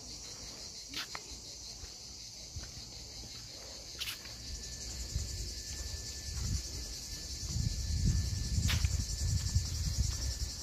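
A steady, high-pitched chorus of insects in the trees. A low rumble comes in on the microphone from about halfway through, and there are a few faint clicks.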